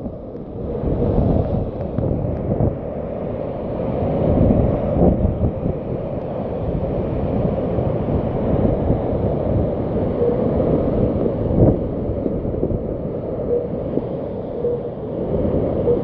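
Storm wind buffeting the microphone: a loud, low rumbling noise that swells and eases in gusts.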